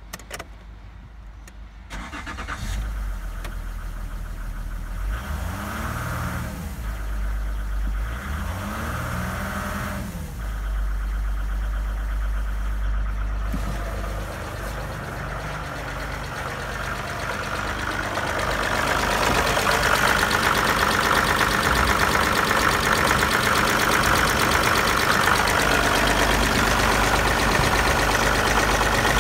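Opel Vectra C's Z30DT 3.0-litre V6 turbodiesel started about two seconds in, then idling, with two short revs a few seconds apart. It gets louder near the end, heard close up in the engine bay.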